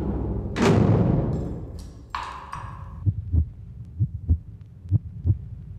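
Intro logo music with sound effects: a loud hit about half a second in that slowly dies away, a second, higher ringing hit at about two seconds, then pairs of low thumps repeating about once a second.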